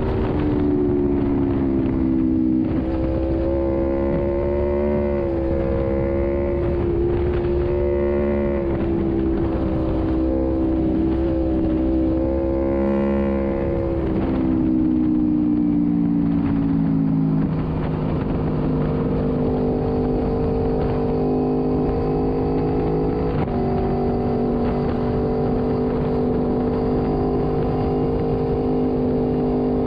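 Motorcycle engine running at road speed with wind and tyre rush, the engine note holding steady, easing down in pitch about halfway through and then holding steady lower.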